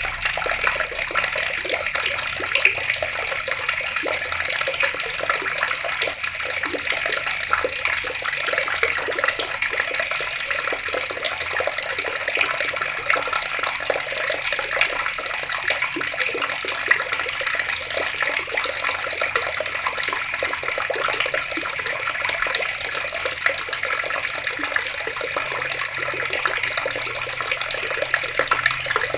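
Water pouring steadily from an outdoor tap and splashing, a continuous even rush with fine splattering throughout.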